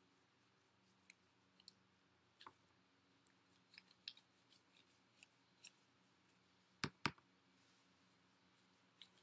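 Near silence with faint scattered clicks and taps of a paintbrush and hands at work at a tabletop during watercolour painting, and two louder knocks close together about seven seconds in.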